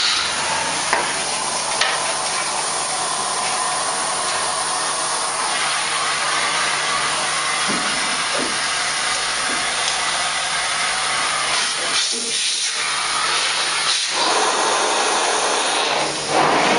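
Hot-water carpet extraction machine running, its vacuum giving a steady loud rushing hiss of suction. The sound briefly drops twice, about twelve and fourteen seconds in.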